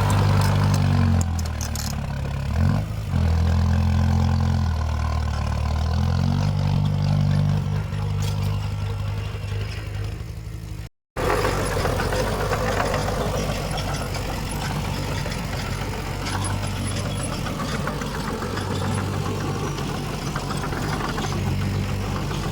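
Heavy diesel engine of earthmoving machinery working, its revs rising and falling under load. About halfway through, the sound cuts out briefly and a second, steadier engine takes over.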